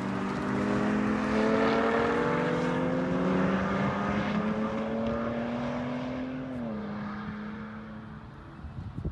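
A car engine at speed on a race track, its pitch climbing steadily for several seconds, then dropping suddenly about six and a half seconds in and fading away.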